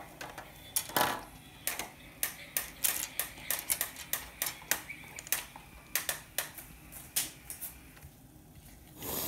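Quick, irregular clicks and taps of small hard objects being handled, a few a second, stopping about a second and a half before the end.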